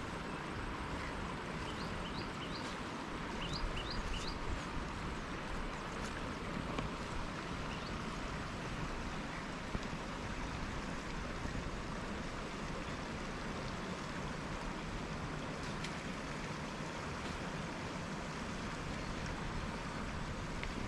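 Steady outdoor hiss with a low rumble. A small bird gives a few quick chirps between about two and four and a half seconds in.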